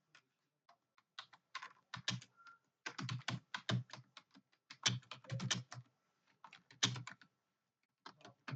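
Fast typing on a computer keyboard: bursts of quick key clicks with short pauses between words.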